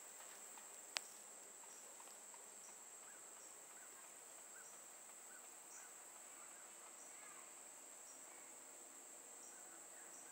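Near silence outdoors: a faint, steady high-pitched insect trill, with faint small chirps repeating in the background and a single sharp click about a second in.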